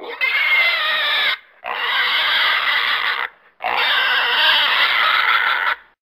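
Pig squealing: three long squeals, each about one and a half to two seconds, with short breaks between them.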